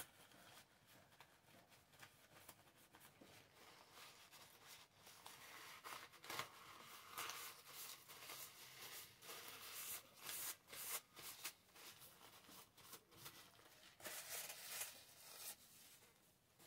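Faint, intermittent rustling of a paper napkin being handled, with scattered soft rustles and clicks that pick up about four seconds in.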